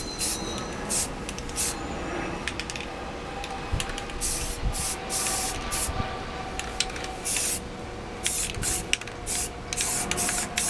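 Aerosol spray can of primer sealer spraying in a series of short hissing bursts, some longer than others, as primer is laid onto a motorcycle fairing.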